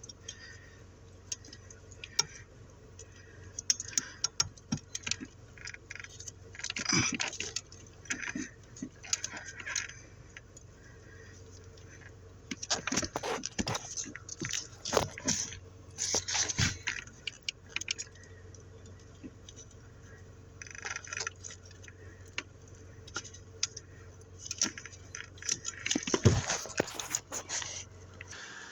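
Intermittent clinks, scrapes and rustling of small parts being handled, in several bursts with the loudest in the middle and near the end. Under them runs a steady low hum, fitting the car's engine left idling.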